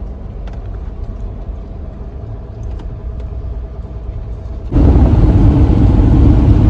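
Road and engine rumble heard from inside a moving vehicle. About two thirds of the way through it jumps suddenly to a much louder, heavier rumble, which is a cut to another stretch of driving.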